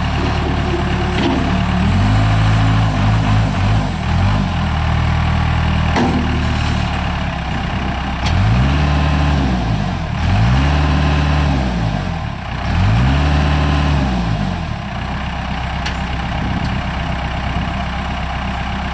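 Case 40XT skid steer's Cummins 4B naturally aspirated four-cylinder diesel running, revving up and back down four times, each rev lasting about two seconds. The first rev comes about two seconds in; the other three follow one after another over the middle of the stretch.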